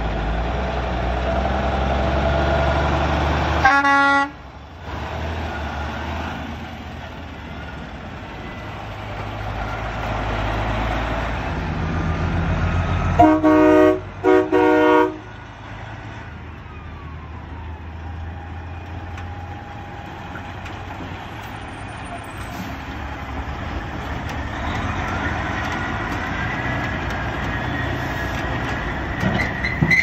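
Diesel semi trucks running past, with a truck horn sounding once briefly about four seconds in, then three short horn blasts about thirteen to fifteen seconds in; the horn blasts are the loudest sounds.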